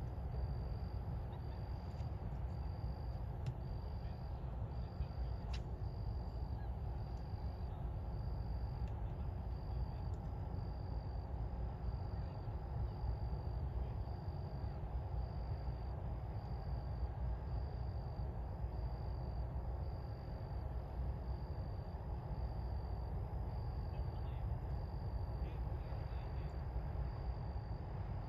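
An insect chirping in a regular high pulse about once a second, over a steady low rumble.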